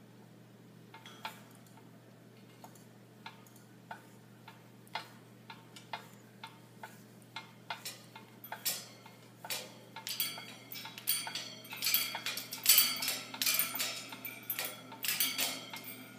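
Cockatoo playing in its wire cage: sharp clicks and taps of beak and claws on the bars and toys, about one a second at first. From about ten seconds in they turn into a fast, louder flurry of clicking and clattering with a metallic ring.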